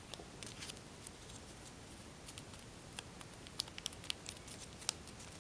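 Faint, scattered crinkles and small ticks of thin tissue-foil paper being creased and pressed between fingers while folding.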